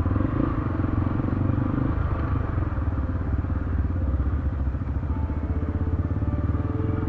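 Motorcycle engines running at low revs with a steady, even pulse as several bikes ride slowly together.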